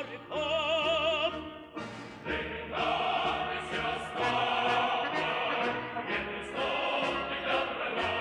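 Recorded Soviet song with orchestra: a solo voice held with wide vibrato, then about two seconds in a full choir and orchestra come in together.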